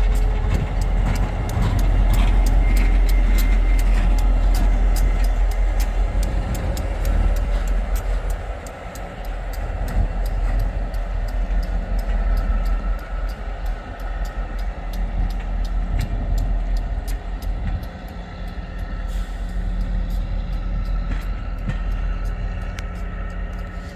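O gauge model train running on the layout: a steady low rumble with many evenly spaced clicks and some faint steady tones.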